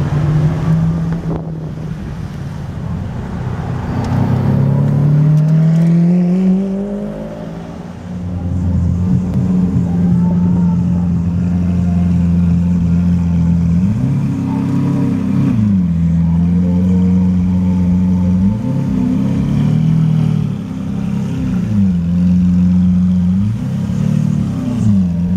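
Lamborghini Aventador's V12 running through an LNB exhaust. Its note climbs slowly over the first few seconds and then holds at a steady idle. It is broken by three short throttle blips that rise and fall, in the middle and near the end.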